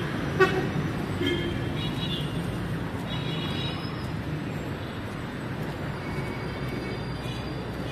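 City street traffic heard from a moving vehicle: a steady low rumble of engines and tyres, with a few short car-horn toots in the first four seconds.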